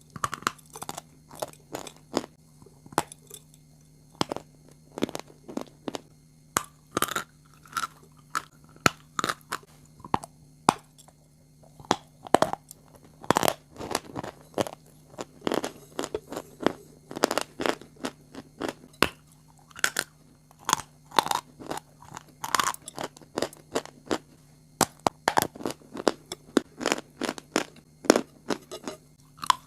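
Crunchy food being bitten and chewed close to the microphone: a quick, irregular run of sharp crunches.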